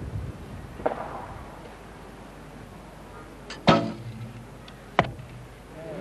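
Olympic recurve bow shot: the string is released with a loud sharp snap and a brief low ringing more than halfway through. About a second later comes a second sharp crack, with a softer knock near the start.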